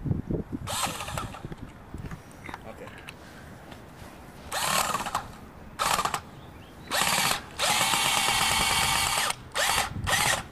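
Handheld power drill with a Phillips bit driving a screw into PVC pipe, run in a series of short bursts, the longest about two seconds near the end.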